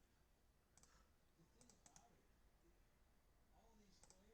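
Near silence with a few faint computer mouse clicks, in small clusters of two or three.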